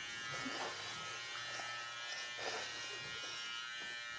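Electric hair clipper running with a steady buzz while trimming hair.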